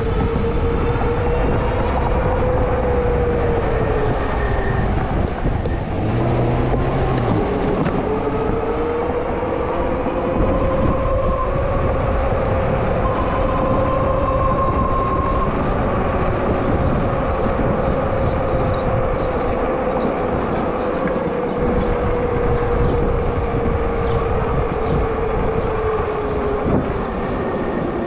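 Rize Blade 2 e-bike under way: a steady drive whine from its motor and fat tyres that falls as the bike slows, climbs again as it speeds up, and sinks near the end, over heavy wind rush on the microphone.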